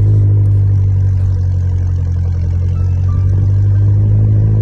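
An engine running steadily at idle: a loud, unchanging low hum.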